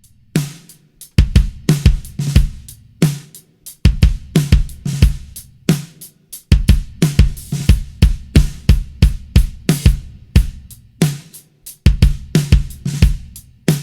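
Drum kit played in a steady groove: a bass drum struck by a pedal beater thumps under snare hits, hi-hat and cymbals.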